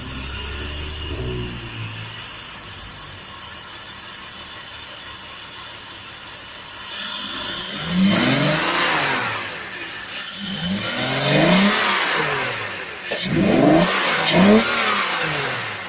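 Car engine running with the airbox removed and the airflow sensor plugged straight on, revved three times in the second half, each rev rising and falling, with loud open-intake induction noise.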